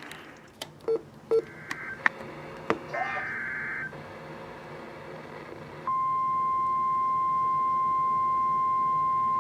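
A few clicks and short pops, then a brief burst of digital alert data tones (an EAS header). About six seconds in, a single steady alert tone starts and holds: the NOAA Weather Radio warning alarm that comes before a flash flood warning.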